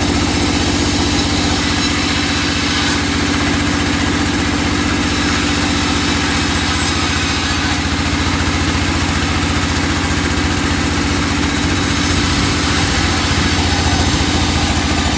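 Engine of a wood-sawing machine running steadily at an even, unchanging speed.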